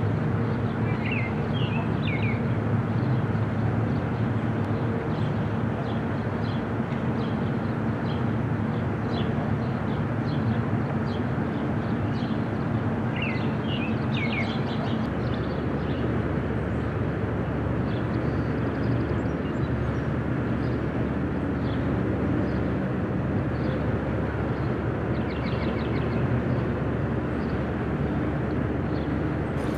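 Steady outdoor background noise of traffic, a constant low hum, with a few short high chirps about a second in and again around thirteen seconds.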